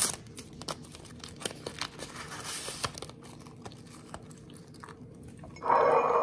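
Paper tea-bag sachet crinkling and rustling as it is torn open and the tea bag pulled out, with scattered small clicks. Near the end comes a louder, fuller sound lasting about half a second.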